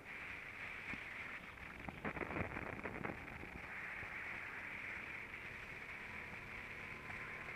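Muffled onboard sound of a racing kart at speed: a steady hiss of wind and engine, with a short burst of rattling about two seconds in.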